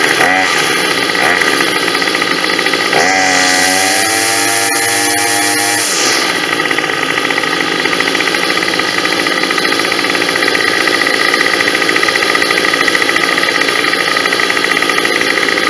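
Two small two-stroke string trimmer engines, a Troy-Bilt and a Homelite, running together. About three seconds in, one is revved up and held for about three seconds, then drops back to idle.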